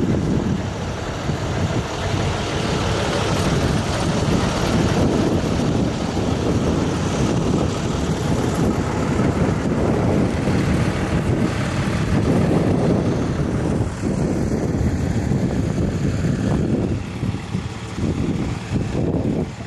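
Wind buffeting the camera microphone: a loud, uneven low rumble that flutters and gusts throughout.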